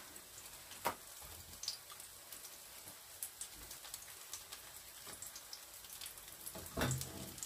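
Pork kimchi pancake (kimchi jeon) sizzling in oil in a frying pan, a steady light sizzle with small crackles and pops, and one sharper click about a second in.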